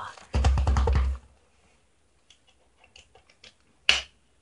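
Close rustling and rubbing of fabric and fur against the microphone as a dog's vest is handled, with a dense crackle and low rumble for about a second early on, a few faint ticks, and one sharp click near the end.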